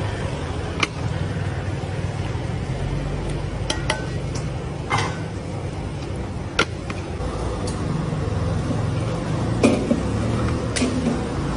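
Clay pots and their clay lids clinking and knocking now and then, about half a dozen sharp clacks, over a steady low rumble.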